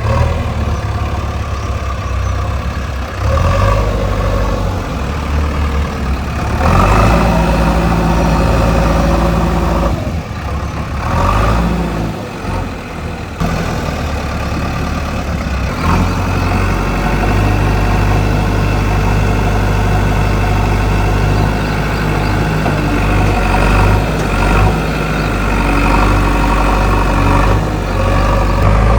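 Heavy diesel engines of a backhoe loader and dump truck running, with the revs rising and falling several times.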